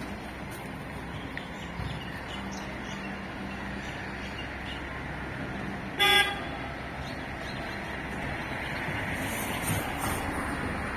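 Urban street ambience, with one short vehicle horn toot about six seconds in as the loudest sound.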